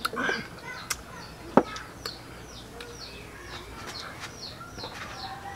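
A bird chirping over and over, short high falling notes about three a second. A few sharp knocks come in between, the loudest about a second and a half in.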